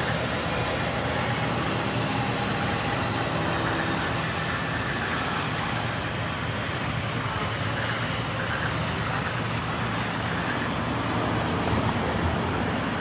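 Band sawmill running steadily, a constant low hum from the machine as boards pass the blade.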